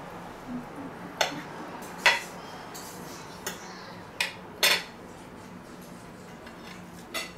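Knife and fork clinking and scraping against a plate: about six sharp clinks scattered over several seconds.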